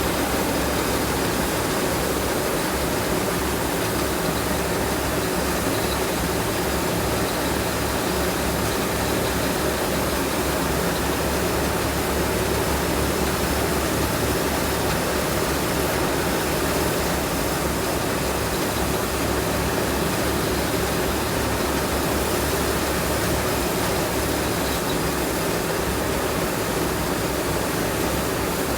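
Tracked rice combine harvester running steadily: a loud, even rush of engine and machine noise that does not change.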